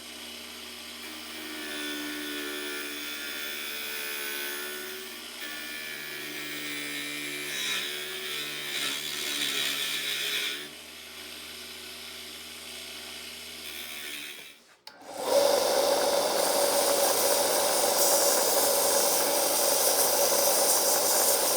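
Mini lathe motor running while a tool cuts into a spinning wooden dowel, the cutting sound rising and falling. About fifteen seconds in it stops abruptly and a louder, steady machining noise takes over.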